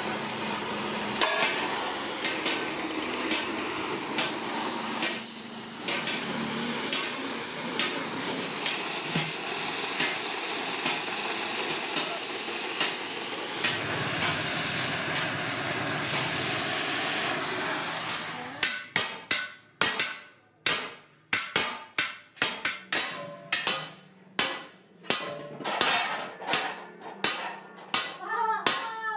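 Gas welding torch hissing steadily as a seam on a metal degh (cauldron) is welded. After about eighteen seconds it cuts to hand hammers beating degh shells: sharp, irregular strikes about two a second from two hammers.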